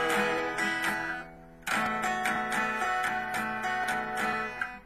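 Guitar strumming chords in an instrumental break. It stops briefly about a second and a half in, then a second strummed passage rings on until near the end.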